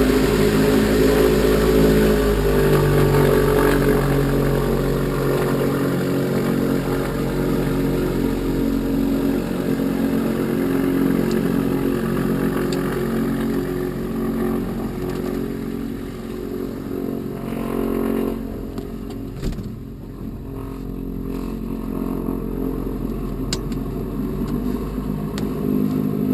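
Light aircraft piston engine running steadily, its hum carrying a stack of low, even tones; about 18 seconds in, the higher hiss drops away and the sound grows quieter.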